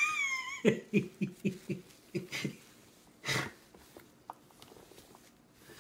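A toddler's high-pitched squeal, then a run of short breathy bursts like giggling, about four a second, and a single breath a little past the middle.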